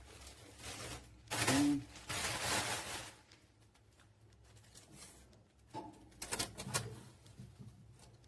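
Plastic parts and packaging being handled: two loud rustling bursts in the first three seconds, then a run of light clicks and taps near the end.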